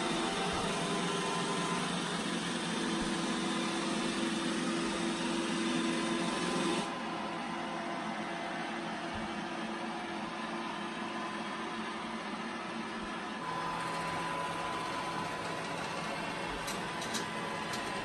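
iRobot Roomba i7+ robot vacuum running as it drives across a tile floor to its base, a steady mechanical hum. The hum drops in level about seven seconds in and shifts again a little past halfway, when a steady tone comes in.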